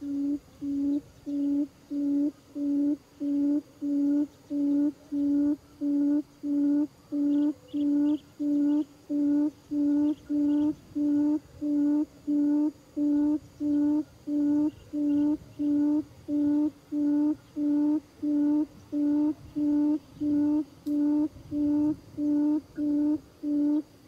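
Buttonquail lure call played from a loudspeaker: a steady series of low, hollow hoots, about three every two seconds, each on one clear pitch.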